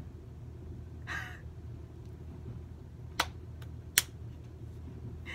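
Two sharp hand claps about a second apart, the second louder, over a steady low room hum, with a short breathy sound about a second in.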